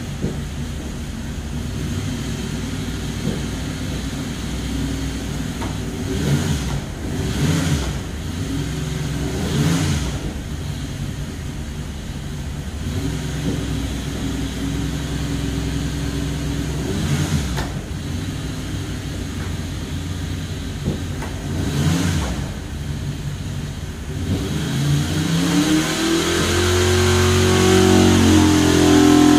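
Ford Boss 429 semi-hemi V8 running on an engine dyno, heard through the test-cell window. It runs steadily at low speed with a few short blips of the throttle. From about 25 seconds in, the revs climb smoothly and it gets louder as a full-throttle dyno pull begins.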